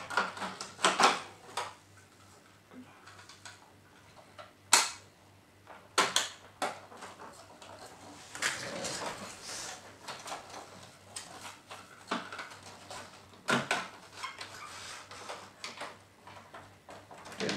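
Plastic casing parts of a Jura coffee machine being handled and fitted by hand: scattered sharp clicks and knocks with softer scraping and rustling between them.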